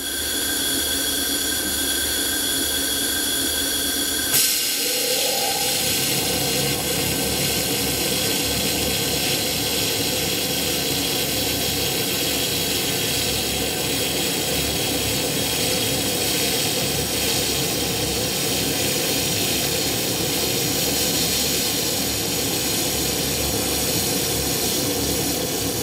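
LightWELD handheld laser welder running a weld along a stainless steel T-joint: a steady hiss with a low hum under it. The sound shifts with a short knock about four seconds in, then runs on evenly.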